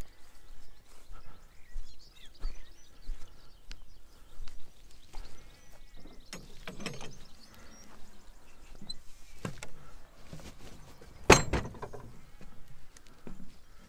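Footsteps and rustling of a person walking outdoors, uneven and irregular, with one sharp knock about eleven seconds in, the loudest sound.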